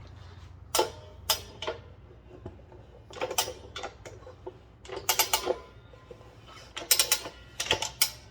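Ratchet strap of a Rabaconda tire changer being cranked in short bursts of sharp clicks, about six or seven strokes, tightening the strap that forces the tire bead off the rim.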